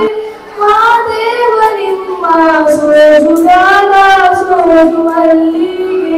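A high solo voice singing a slow melody with long held notes that glide between pitches.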